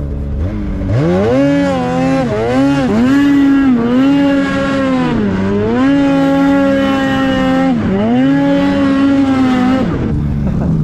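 Polaris 850 Patriot twin-cylinder two-stroke snowmobile engine breathing through a Sled Shed Cooker Thing silencer, revving up sharply about half a second in and held high, around 7,000 rpm, while pulling through snow. The revs dip briefly and climb again several times, then fall away near the end.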